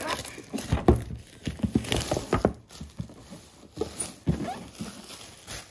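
Plastic shrink-wrap being pulled off a cardboard game box and crumpled in the hand, with the box knocking and tapping on a wooden table in irregular bumps.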